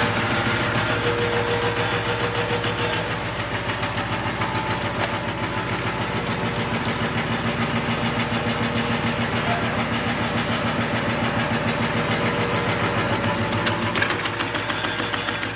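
SK-003S CNC carved cutting machine running, punching wooden veneer into tongue depressor sticks: a steady motor hum under a fast, even train of punching strokes.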